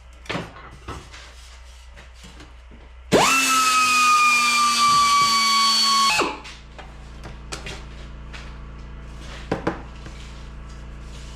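A small angle grinder runs for about three seconds with a high whine, its pitch sagging slightly as it works, then stops abruptly. It is grinding off a spot weld on a car's sub rail. A few light knocks come before and after.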